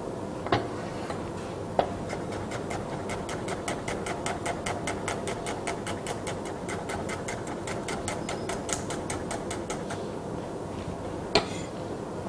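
Kitchen knife slicing shallots thinly on a wooden cutting board: a few single knocks, then a fast, even run of chops, several a second, for about seven seconds, and one louder knock near the end.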